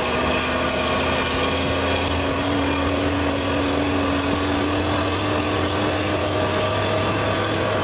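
Vehicle engine running under way on a gravel road, heard from inside the cab, with a steady hum and an engine note that rises slowly over the first several seconds; tyre and road noise lies underneath.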